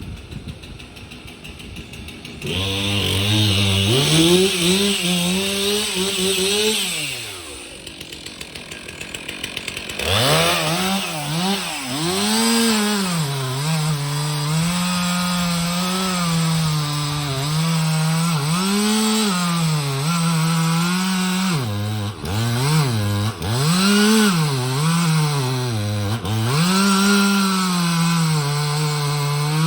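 Gas chainsaw cutting into a tree trunk, the engine note rising and falling as the throttle is worked and the chain loads up in the wood. It drops back to a low idle for a few seconds, then is throttled up again about ten seconds in.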